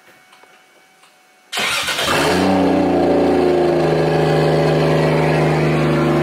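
An engine cranks and catches with a sudden loud start about a second and a half in, then settles into a steady idle.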